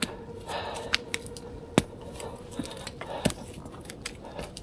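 A handful of sharp clicks and knocks at irregular intervals from a man crossing water on foot at night, with a panting breath near the start and a faint steady hum underneath.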